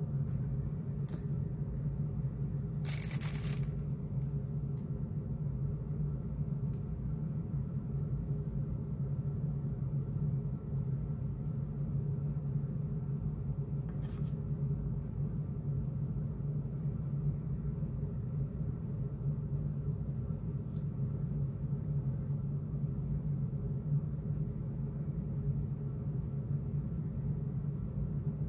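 Steady low background hum, with a few faint clicks and a short rustle about three seconds in.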